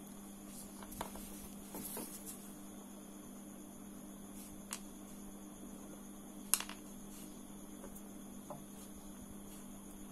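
Small metal clicks of tweezers and tiny clutch rollers picked from a Shimano Stradic CI4+ one-way roller clutch and set down on a wooden table, about five in all, the loudest a double click near the middle. A steady low electrical hum runs under them.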